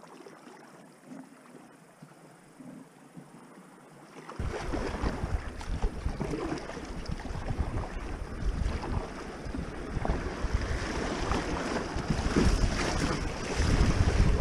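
Creek water rushing and splashing around an inflatable packraft as it runs down a fast current. Faint for the first four seconds or so, then suddenly much louder and choppier, with wind rumbling on the microphone near the end.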